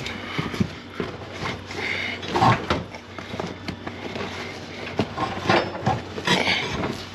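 Molded floor carpet in a VW Mk5 GTI being pulled loose and folded over by hand: irregular rustling and scraping with scattered knocks and clicks, and louder bursts about two and a half and six seconds in.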